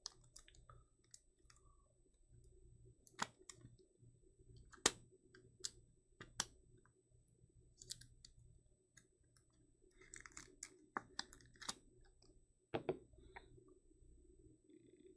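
Faint handling noise of trading cards: scattered sharp clicks and snaps, with a short rustle about ten seconds in.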